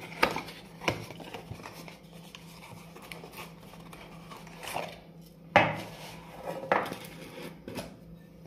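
Round metal tin and its cardboard box being handled: scraping and rustling of card, with a few short metal knocks and clinks as the tin is lifted out and its lid pulled off, the loudest a little past halfway.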